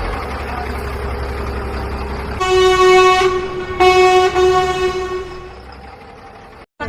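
A low engine rumble, then a vehicle horn blowing two long blasts, the second fading away.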